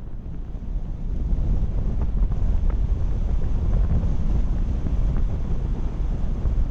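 Wind buffeting the microphone: a steady low rumble that gets louder about a second in.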